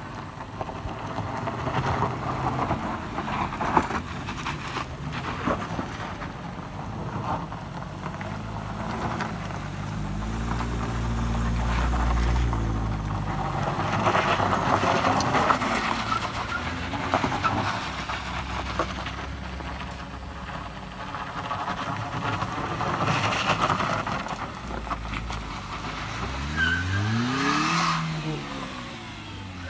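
Car engines labouring up a loose gravel slope, with tyres crunching and spinning on the surface. Near the end a front-wheel-drive MPV's engine revs up and drops back as its front wheels spin for grip.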